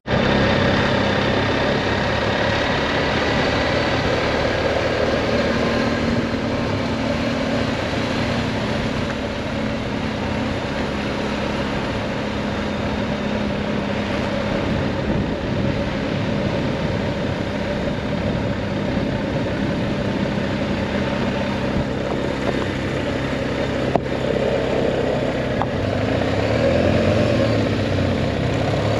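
BMW R 1250 GS Adventure's boxer-twin engine running steadily as the motorcycle rides along at road speed, with a constant rush of wind and road noise.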